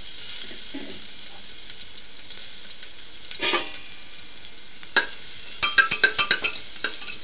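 Garlic-ginger paste sizzling in hot ghee in an aluminium pressure cooker. There is a single knock about three and a half seconds in. From about five seconds a spoon stirs the paste, clinking and scraping quickly against the cooker.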